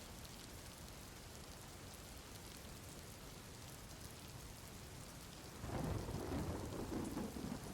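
Steady rain falling, then about two-thirds of the way in a low rumble of thunder rolls in and grows louder.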